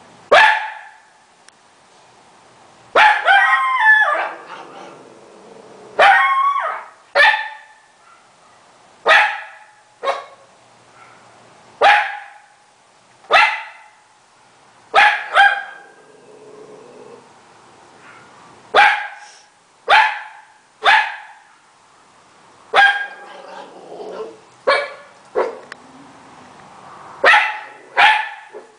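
Italian greyhound barking over and over: short barks every second or two, some in quick pairs, with a longer, wavering bark about three seconds in.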